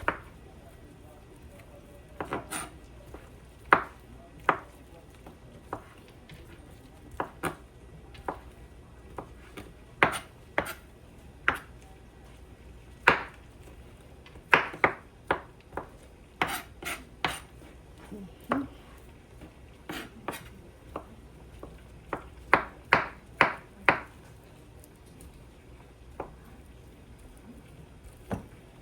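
A kitchen knife chopping cooked chicken meat on a cutting board: irregular sharp knocks, some single and some in quick runs of three to five strokes.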